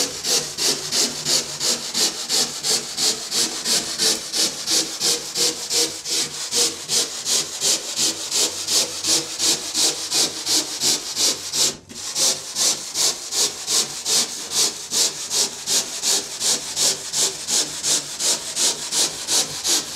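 Handsaw cutting through a foam surfboard blank in steady back-and-forth strokes, about two to three a second, with a brief break about twelve seconds in.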